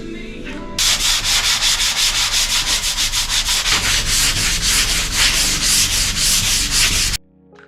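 Hand sanding of a drywall patch: fast, even back-and-forth strokes of an abrasive over dried joint compound, several strokes a second, stopping abruptly near the end.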